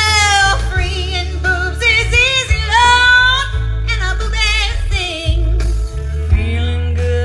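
Background song with a singer's voice, held and wavering notes, over a heavy, steady bass line.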